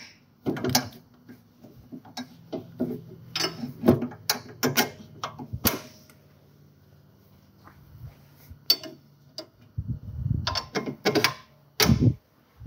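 Irregular metal clicks and knocks as a 2015 Honda Pioneer 500's steering knuckle is worked by hand onto the new axle and the A-arms, over a low steady hum.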